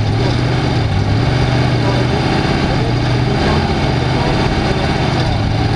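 Off-road race vehicle's engine running steadily at low, even speed, close and loud.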